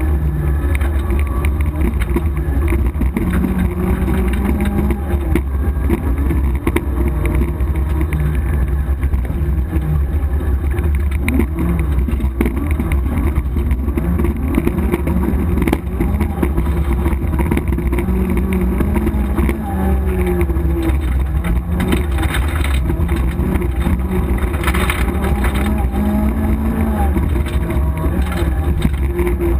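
Rally Opel Manta GTE's four-cylinder engine heard from inside the cabin, driven hard, its note climbing and dropping back again and again through gear changes, over a heavy low rumble.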